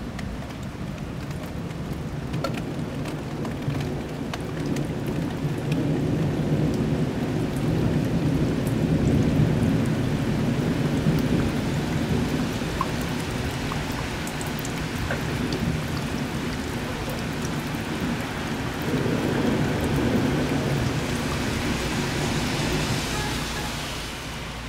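Heavy rain falling during a thunderstorm, with scattered drop ticks over a steady hiss, and long low rolls of thunder that swell twice, the second near the end. The sound fades out at the very end.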